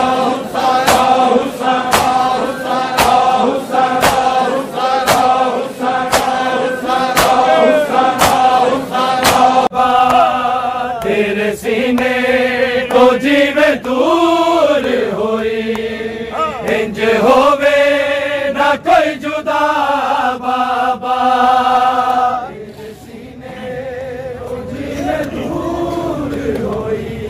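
A male voice chanting a mourning lament, with a sharp beat about once a second over a held tone for the first ten seconds; the chanting then rises and falls in long melodic phrases. About 22 seconds in it gets quieter and more diffuse.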